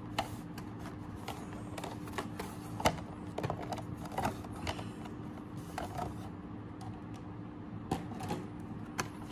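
Stiff clear plastic of a collector's protector case and a blister-card package being handled: scattered clicks and crinkles, the sharpest about three seconds in, over a faint steady hum.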